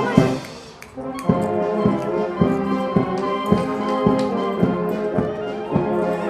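Background music with brass and a steady beat of about three strikes a second; it drops away briefly about half a second in and comes back at about a second.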